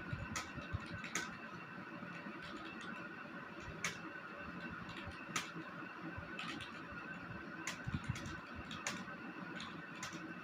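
Typing on a computer keyboard: irregular key clicks, some sharper than others, over a steady background hum.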